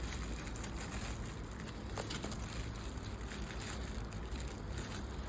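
Faint rustling and a few light clicks of packing material being handled, over a steady low rumble.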